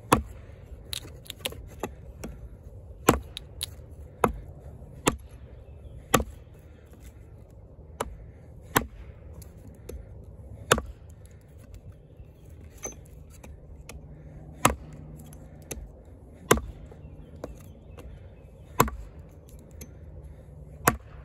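Kobalt 14-inch camp axe with a hickory handle chopping into a thin branch lying on a stump: a series of sharp wooden strikes, one every one to two seconds, some much harder than others.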